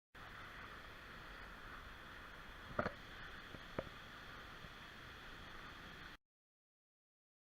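Faint steady background hiss with two short knocks about a second apart near the middle, then the sound cuts out abruptly.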